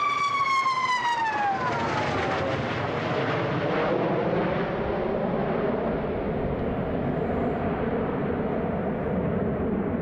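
Sukhoi Su-57 fighter jet passing by in flight: a shrill, high engine whine, the jet's 'scream', drops steeply in pitch over about two seconds as it goes past, then gives way to a steady, broad jet roar.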